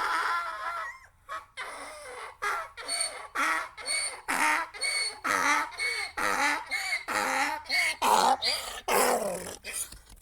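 Donkey braying: a long drawn-out call that breaks off about a second in into a rapid run of hee-haw strokes, about two a second, dying away near the end.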